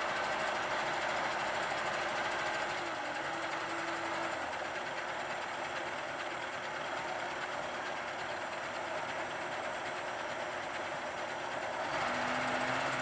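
KamAZ-55111 dump truck's V8 diesel engine running steadily while the hydraulic hoist raises the loaded body to tip sand. Its pitch rises briefly about three seconds in, and it gets louder again near the end.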